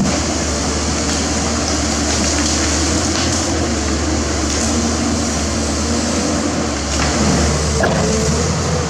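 Pindad Excava 200 excavator's Deutz four-stroke direct-injection diesel engine running steadily under working load while the boom and bucket dig through brush. A few faint cracks are heard, and the sound swells slightly near the end.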